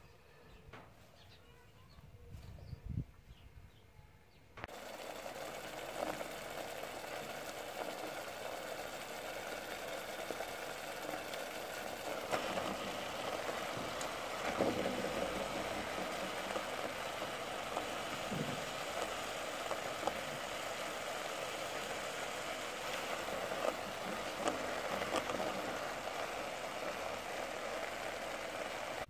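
Soft rustling of leafy greens handled by hand, then from about five seconds in a steady hiss of the greens cooking in a hot pot.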